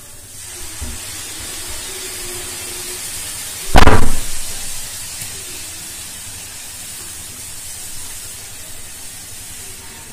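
Milk poured into grated carrots frying in hot ghee, hissing and sizzling steadily in the pan, with one loud thump about four seconds in.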